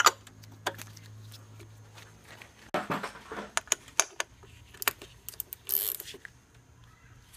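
Scattered clicks and knocks of a hand tool working the oil filter housing cap loose on an Audi/VW 2.0T TSI engine, with a short hiss about six seconds in.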